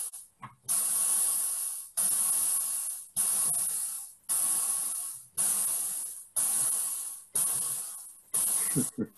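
Korg analogue synthesizer sounding its pink-noise generator through the filter as a run of hissing chuffs, about one a second, each starting sharply and fading away. The patch imitates a steam engine.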